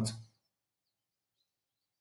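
A man's speaking voice trails off at the very start, then near silence for the rest.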